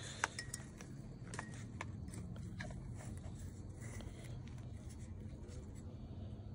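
A few light, sharp clicks and taps, the loudest about a quarter second in and the rest over the next few seconds, over a low steady hum.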